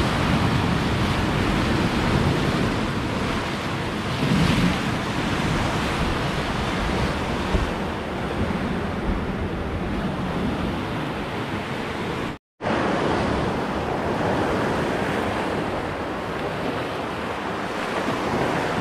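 Sea surf washing and breaking against coastal rocks in a steady rush of noise. The sound cuts out for an instant about two-thirds of the way through.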